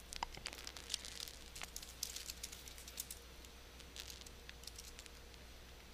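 Faint, scattered clicks from a computer mouse and keyboard, a few over several seconds, over a low steady hum.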